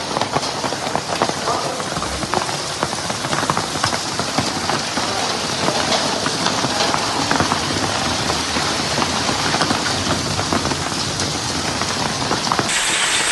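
Hailstorm: hailstones and heavy rain pelting down, a dense clatter of many sharp impacts over a steady rush.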